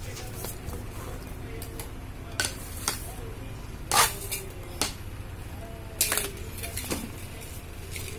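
Clear plastic sheet being handled, crackling and clicking in about six short, sharp crinkles roughly a second apart, over a steady low hum.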